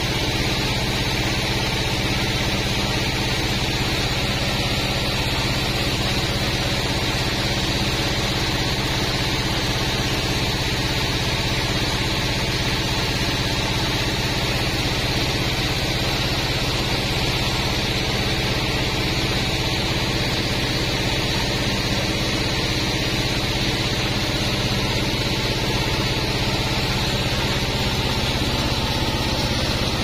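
Sawmill band saw (a Pandan Taiwan Bandsaw 36) running steadily without cutting, a constant machine hum.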